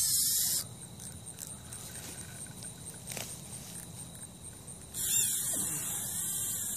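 Spinning reel's drag buzzing as the kite pulls line off the spool, in two spells: until about half a second in, then again from about five seconds in, with quieter rustling in between.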